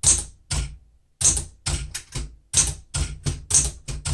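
Keys striking on a 1970 Smith-Corona Super Sterling manual portable typewriter: about ten crisp keystrokes at a slow, even pace, with a short pause about a second in.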